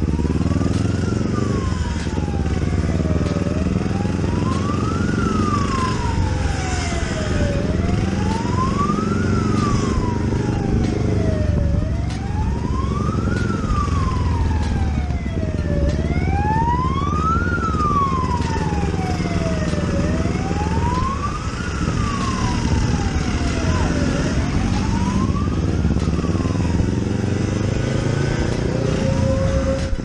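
A wailing siren rises and falls slowly, one cycle about every four seconds, over the steady running of a Yamaha RXZ 135 two-stroke single-cylinder motorcycle engine in slow traffic.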